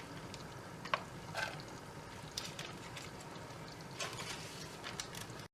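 Diced onions going into a pan of oil on very low heat: a faint sizzle with a few scattered light taps and clicks.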